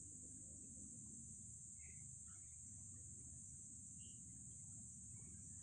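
Near silence: room tone with a faint, steady high-pitched drone.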